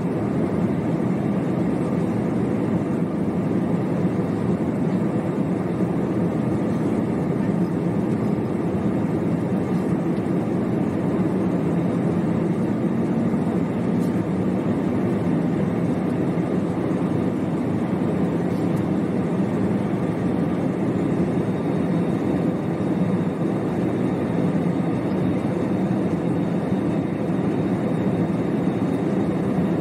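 Steady cabin noise inside an Airbus A320 in flight: an even, low drone of the jet engines and the air rushing past the fuselage.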